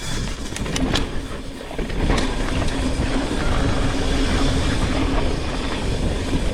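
Mountain bike descending a dirt trail, heard from a GoPro worn by the rider: tyres rolling over dirt and the bike rattling, with wind on the microphone. A few sharp knocks come in the first two seconds, and a steady hum joins after about a second and a half.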